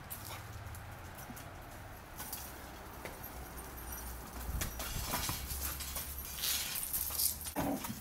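Two dogs playing on paving stones: paws scrabbling and the clink and rattle of a metal chain on one dog's collar, in quick irregular clicks that grow busier and louder in the second half.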